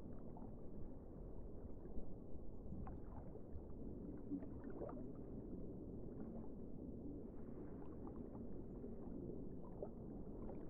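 Low, muffled rumble of water with faint scattered splashes and gurgles.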